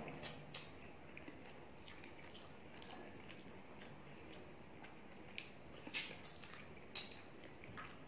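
Eating rice and chicken curry by hand: wet squishes from the fingers mixing the rice and curry, and lip smacks from chewing. Soft scattered smacks, with a cluster of sharper ones between about five and seven and a half seconds in.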